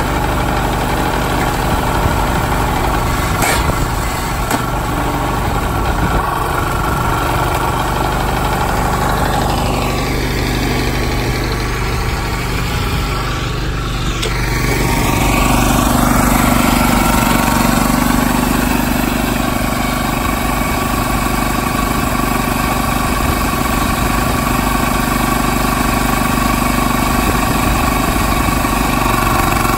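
Small petrol engine of a hydraulic log splitter running steadily at a constant speed, with a single sharp crack a few seconds in. Around the middle its tone sweeps briefly, then it runs slightly louder for a few seconds.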